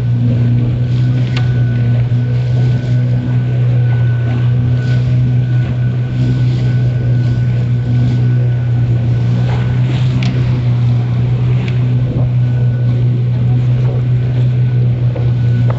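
A small open wooden boat's engine running steadily under way, a constant low hum, with water splashing around the hull.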